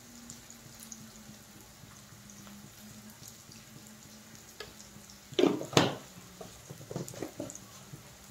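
Chopped onions frying quietly in oil in a kadhai, with a faint sizzle. About five seconds in come two sharp, loud knocks at the pan, then a few lighter clinks, as salt is added and stirred in.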